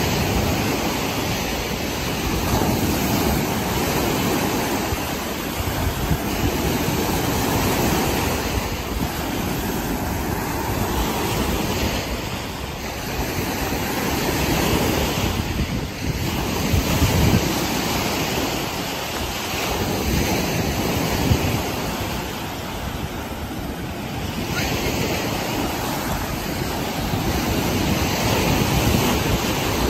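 Lake Erie waves breaking close to shore and washing up over a sand-and-pebble beach, a continuous surf wash that swells and eases every few seconds. Wind rumbles on the microphone now and then.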